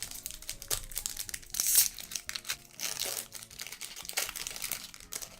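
Plastic booster-pack wrapper crinkling and tearing as it is opened by hand: a dense run of crackles, loudest about two seconds in.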